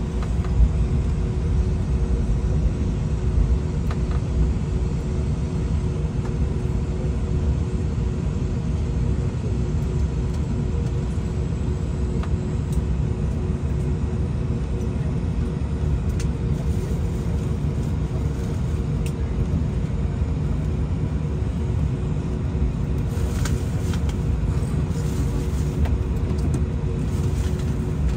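Cabin noise of an Airbus A321-200 taxiing after landing: a steady low rumble from the jet engines at idle and the rolling gear, with a constant hum underneath. A few faint clicks come near the end.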